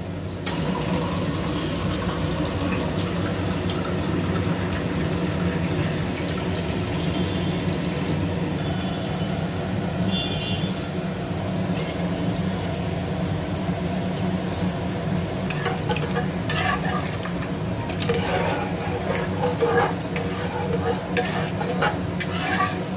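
Water poured from a glass into an aluminium pressure cooker of dal, then a ladle stirring and clicking against the pot in the last few seconds, over a steady low hum.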